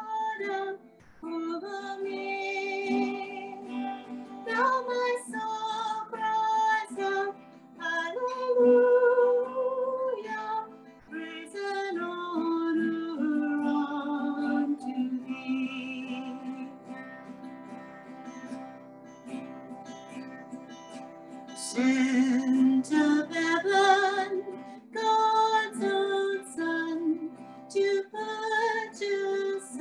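A woman singing a slow hymn, with long held notes, over an instrumental accompaniment.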